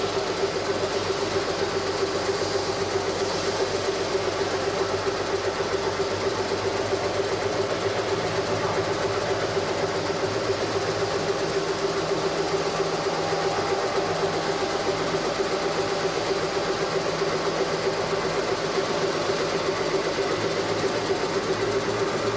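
CNC wood-turning lathe running steadily, its motor giving a constant hum with one strong steady tone and no pauses or changes.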